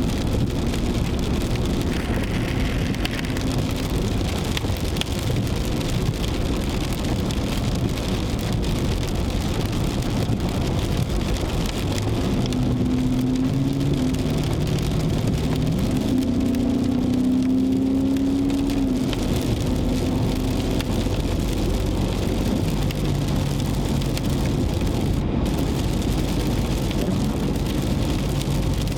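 Car driving, heard from inside the cabin: steady road and engine noise with rain on the car. The engine note rises about halfway through, then settles lower near the end.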